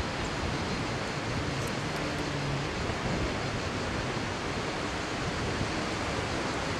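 Steady, even rush of sea surf and wind outdoors, with no distinct events.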